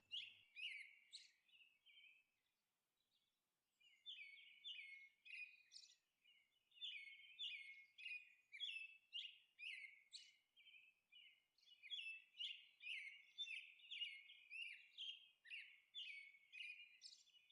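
Faint, high-pitched bird chirps repeating about twice a second, with a short pause partway through.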